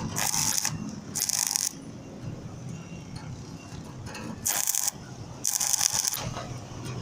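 Arc welding on a steel wheelbarrow: four short bursts of crackling arc, each striking and cutting off abruptly, as the welder lays a continuous weld along reinforcement strips.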